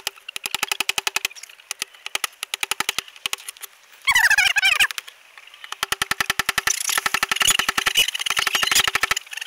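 Metal chisel scraping ice off a wooden ramp in repeated strokes, each stroke chattering as a rapid run of clicks. About four seconds in there is a brief, louder shrill sound.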